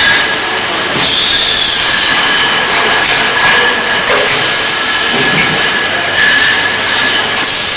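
Automatic shrink-wrapping machine and bottle conveyors on a milk-packing line running: a loud, steady mechanical noise with strong hiss and a steady high whine, swelling briefly a couple of times.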